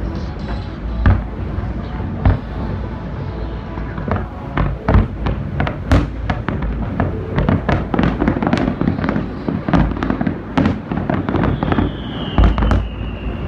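Aerial fireworks shells bursting in a quickening barrage of bangs and crackles, with a cluster of deep booms near the end. A high whistle falls slowly in pitch over the last couple of seconds.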